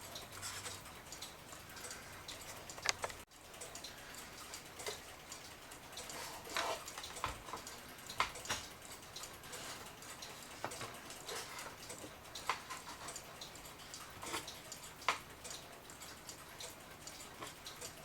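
Irregular light clicks and taps of screws being removed with a screwdriver and parts of a wooden mantel clock case being handled, with one sharper click about three seconds in.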